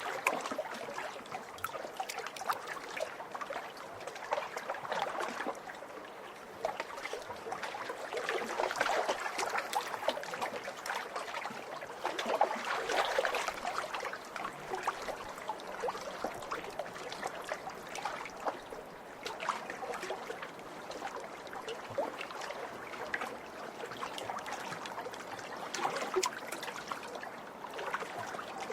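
Small waves splashing and lapping at a lake's edge, a continuous wash of little splashes and drips that swells in surges every few seconds.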